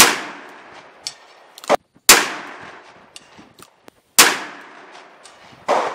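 Three shots from a Smith & Wesson 610-3 revolver firing 10mm, about two seconds apart, each followed by a long fading echo. Two shorter, quieter knocks come between the first two shots and just after the last.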